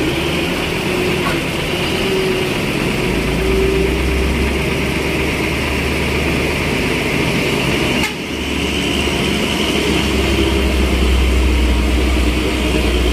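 Heavy diesel truck engines running under load as trucks climb a steep hairpin bend. The sound breaks off suddenly about eight seconds in and picks up again as a second truck's engine, with a stronger low rumble.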